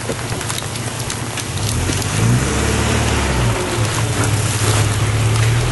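Rain falling on a wet road, with a van's engine running low underneath from about two seconds in.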